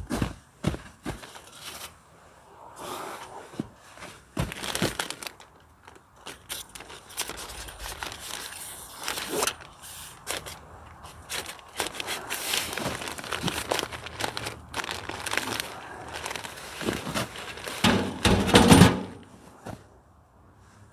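Rustling and crinkling of tent fabric with scattered knocks and clicks as a wrapped stove pipe is handled and worked through the tent's stove jack opening, with the loudest burst of handling noise near the end.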